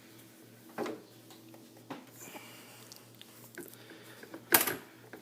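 Handling noises under a truck's hood: a few light knocks and clicks, then one sharper, louder knock about four and a half seconds in, over a faint steady hum.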